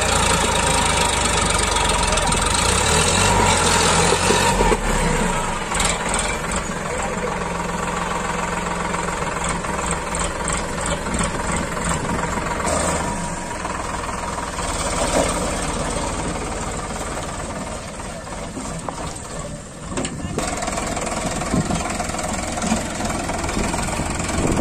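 Sonalika DI RX tractor's three-cylinder diesel engine working under load as it pulls a fully loaded trolley through soft mud. The engine is heavier and louder for the first five seconds or so, then runs steadier.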